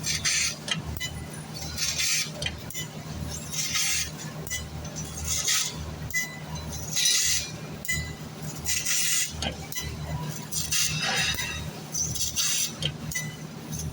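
CNC fiber laser cutting sheet metal: bursts of hissing and crackling from the cutting head's assist gas and sparks, one every second or two as it cuts each line, over the machine's steady low hum.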